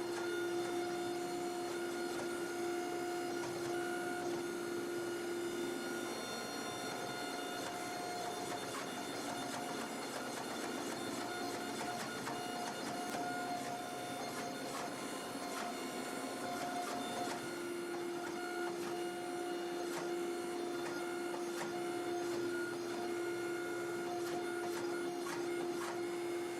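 Hydraulic forging press running, a steady machine hum with a whine; its lowest tone drops away for about ten seconds in the middle, then returns.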